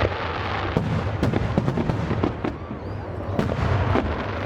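Fireworks display: a rapid string of overlapping booms and crackling bursts with no gap between them.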